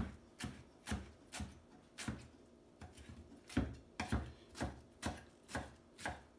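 Chef's knife chopping ramps on a wooden cutting board: the blade knocks on the wood in a steady rhythm of about two strokes a second, with a short pause near the middle.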